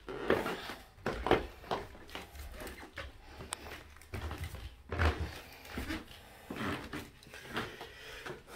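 Footsteps climbing carpeted stairs: a string of dull, irregular thumps, about one or two a second, the heaviest about five seconds in.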